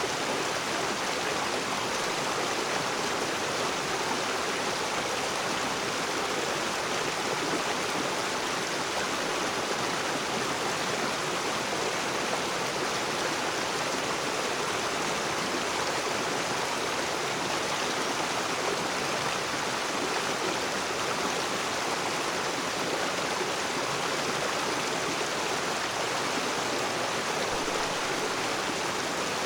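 A rocky river's water rushing and splashing over stones, a steady, even sound with no change.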